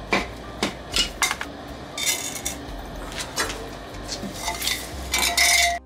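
Bolt cutters jabbing and scraping inside a steel pipe flask, breaking out casting investment that has set hard instead of dissolving in the quench. A series of sharp metal clanks and scrapes, with a longer, ringing scrape near the end.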